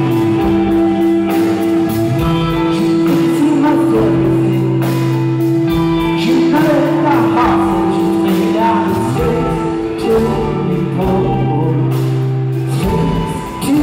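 Live rock band playing loud: electric guitar, bass and drums, with a man singing. A long held note rings under most of it and drops out about ten seconds in.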